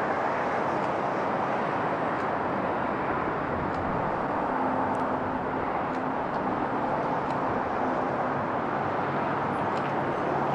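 Steady street traffic noise, a continuous even rumble and hiss, with a few faint clicks scattered through it.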